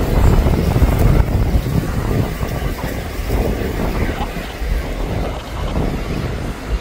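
Wind buffeting the microphone over the low rumble of a Norfolk Southern diesel freight locomotive creeping slowly toward the camera.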